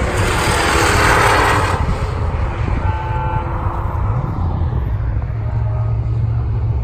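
Modified saloon race car passing at speed, the loud engine and tyre noise peaking about a second in and fading away over the next second. A low engine rumble carries on after it.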